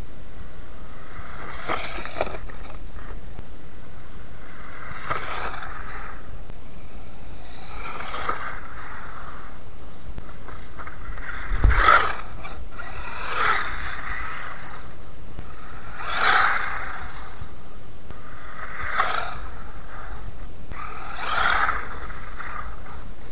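WLtoys 12428 RC buggy running on its stock brushed electric motor, its motor and gear whine and tyre noise on ice and grit swelling and fading as it passes close by again and again, about every two to three seconds. A sharper thump about twelve seconds in is the loudest moment.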